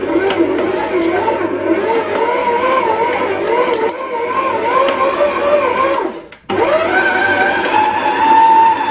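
Brandt stand mixer's motor running as its hook kneads brioche dough, the whine wavering in pitch as butter is worked in. It cuts out briefly about six seconds in, then comes back with a rising whine that settles steady at a higher pitch near the end.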